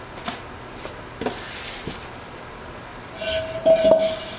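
Styrofoam packing slab being handled and pushed into place: a couple of light knocks and a brief scuffing slide, then a loud, shrill squeak of styrofoam rubbing near the end.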